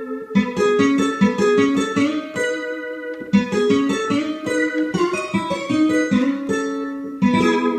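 Korg Krome synthesizer playing a Korg M1 plucked, guitar-like patch: a quick melodic line of separate notes, several a second, ending on a longer held chord.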